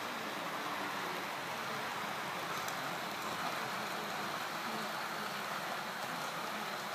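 OO gauge model train running on the layout's track: a steady whirring, rushing noise of the locomotive's motor and wheels on the rails.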